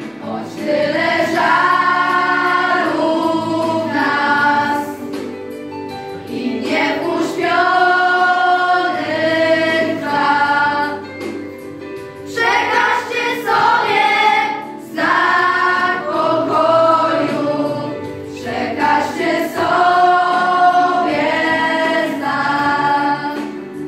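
Children's and youth choir singing a Christmas carol, phrase after phrase with short breaks for breath.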